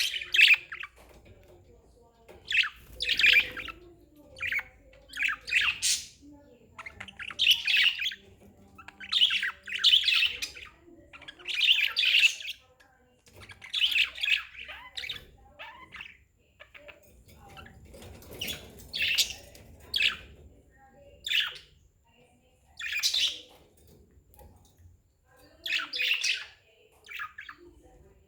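Budgerigars chirping and chattering in short bursts about every second or two.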